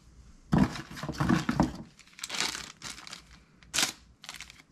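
Clear plastic bag crinkling and ripping in several short bursts as it is handled and sliced with a freshly opened lockback knife's blade.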